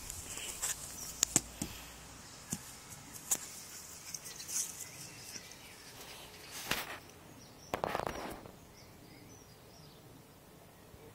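Rustling and scuffling in grass as a young Old English sheepdog puppy plays, with a run of sharp clicks in the first few seconds and a short louder scuffle about eight seconds in.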